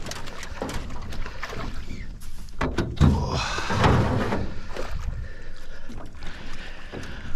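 Clunks and knocks in a small boat, with rustling handling noise, the loudest and busiest stretch about three seconds in.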